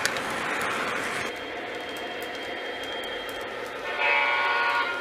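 Lionel Conrail SD80 O-gauge model diesel locomotive running on its track, with a steady running noise throughout, and about four seconds in a horn blast of roughly a second from its onboard electronic sound system.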